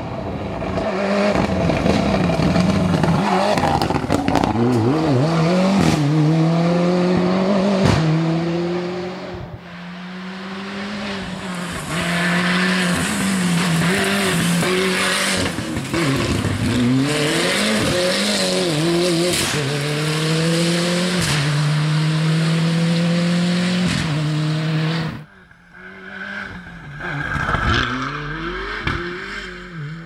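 Ford Escort RS Cosworth Group A rally car's turbocharged four-cylinder engine at full throttle over several passes, its pitch repeatedly climbing and dropping through gear changes. Sharp exhaust pops crack out between the shifts.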